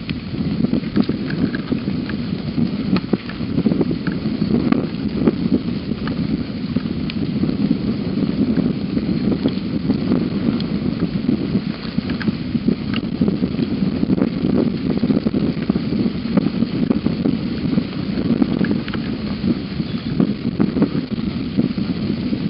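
Steady rain, a dense low pattering with many scattered sharper drop ticks.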